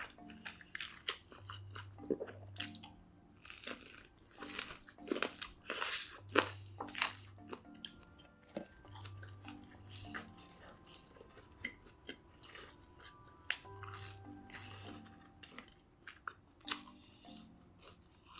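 Close-miked eating: crisp crunching bites and chewing throughout. Soft background music with a repeating bass figure runs underneath.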